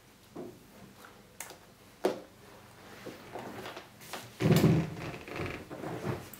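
A few light clicks and taps on a desk, then louder handling noise, rubbing and a bump, as an Amazon Echo Show 2 smart display is gripped and lifted about four and a half seconds in.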